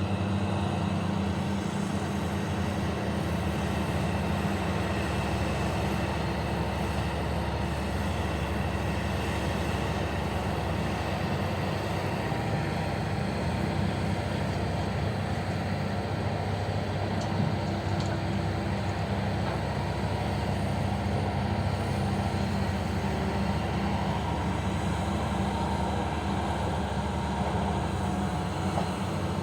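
Heavy mining machinery running steadily: a continuous low engine drone that holds an even level throughout, without breaks or distinct impacts.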